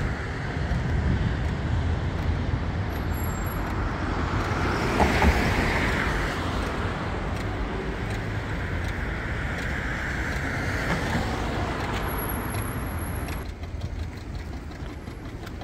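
City street traffic: a steady noise of cars and engines passing, swelling briefly about five seconds in and easing off near the end.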